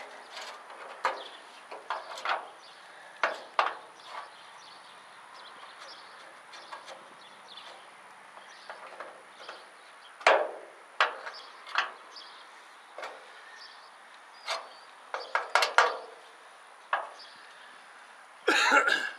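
Irregular clicks, taps and knocks of hand work on the wheel-arch trim and metal body of an old truck, with tools being handled. A denser, louder clatter comes just before the end.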